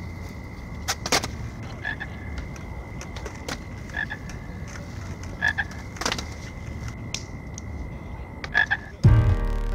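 Skateboard wheels rumbling with a few sharp clacks of the board, under a thin steady high tone and short double chirps that sound like a croaking frog. Music with a heavy beat comes in near the end.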